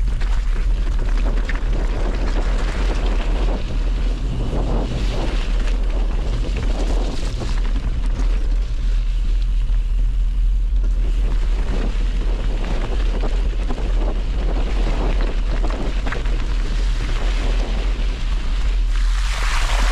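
Wind buffeting the microphone: a constant heavy low rumble with gusting hiss that swells near the end.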